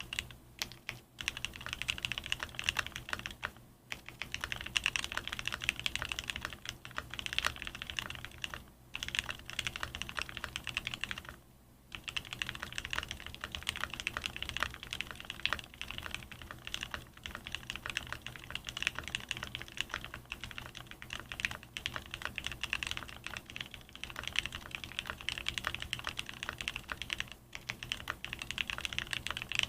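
Steady fast typing on a Cyberboard R2 mechanical keyboard with Gateron North Pole linear switches, Staebies v2 polycarbonate stabilizers, LeleLab polycarbonate keycaps and foam dampening: a dense run of key clacks, with brief pauses about 4, 9 and 11 seconds in and near the end.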